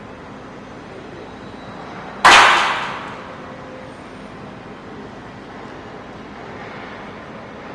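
A single sharp blow of a small hand hammer on a steel plate about two seconds in, ringing and echoing away over about a second, over a steady low background hum.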